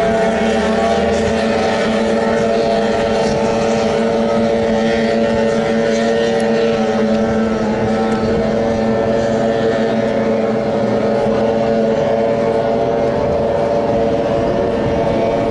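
A 15 hp outboard engine drives a small racing boat at speed. It gives a steady engine note that holds its pitch throughout.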